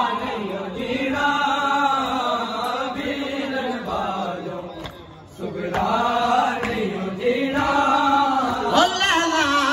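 Men's voices chanting a noha, a Shia lament, together in long, drawn-out melodic lines. There are two phrases, with a short break about five seconds in.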